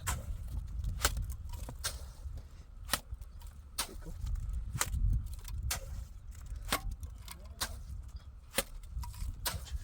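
A series of sharp knocks at irregular intervals, roughly one every half second to a second, over a steady low rumble.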